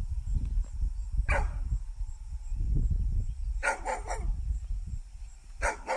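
A dog barking in short barks: one about a second in, a quick run of about three around four seconds, and another near the end.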